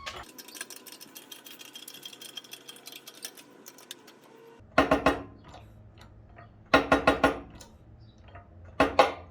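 Rapid clicking of a ratchet turning a bearing press kit's forcing screw as a differential bearing is pressed into place, followed by three short, much louder bursts.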